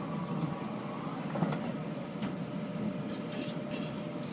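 Inside a moving light-rail train car: a steady running rumble with a faint steady whine, broken by a few short sharp sounds.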